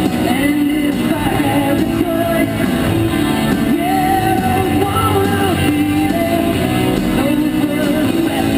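Rock song with singing, playing on a radio.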